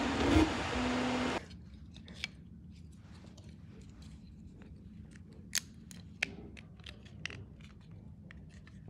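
An Anycubic Kobra 2 Pro 3D printer running with a steady whir, which cuts off suddenly about a second and a half in. Then come sharp snips, clicks and small cracks as pliers break support material off a white PLA 3D-printed part.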